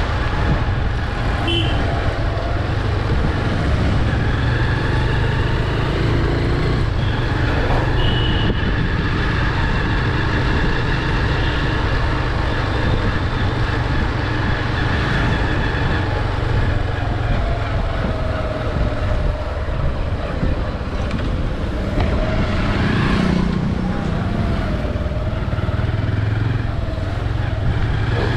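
City road traffic: a steady mix of passing car, motorbike and truck engines, with people's voices in the background.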